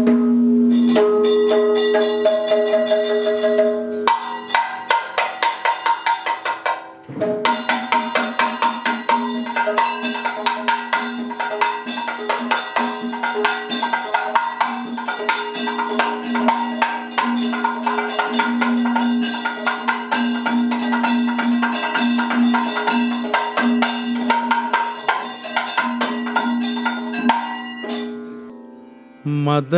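Kathakali-style opening music: a percussion ensemble of drums and small cymbals plays fast rhythmic strokes over a steady sustained drone, with a brief break about seven seconds in and a fade near the end.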